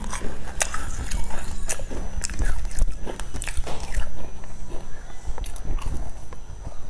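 Close-miked eating sounds: wet mouth clicks and chewing, then a bite into a flaky sesame-topped pastry near the end.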